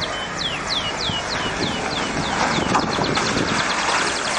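Ineos Grenadier off-road 4x4 driving over rough ground and through mud, heard as a steady noise. Over it runs a repeated series of short, high chirps, each falling in pitch, about two to three a second.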